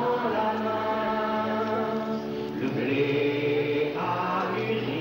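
A choir singing a slow hymn or chant in long held notes, moving to a new pitch every second or two.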